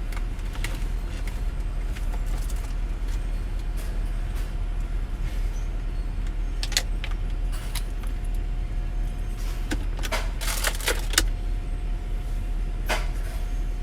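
A car engine idling, a steady low rumble heard from inside the cabin, with a few short rustles and clicks about halfway through and again near the end.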